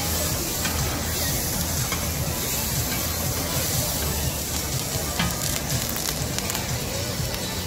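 Spicy chicken feet sizzling on a hot griddle under the flame of a handheld gas torch: a steady hiss of frying with the even low rush of the torch flame.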